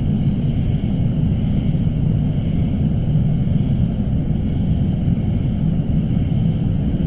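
Suspense ambience sound effect: a steady, deep rumbling drone with faint high tones held above it, unchanging throughout.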